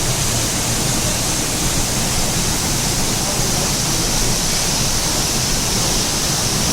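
Waterfall roaring steadily: a loud, even rush of falling water.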